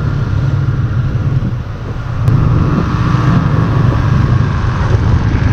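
Motorcycle engine running while riding, with wind and road noise on the microphone; it gets louder about two seconds in.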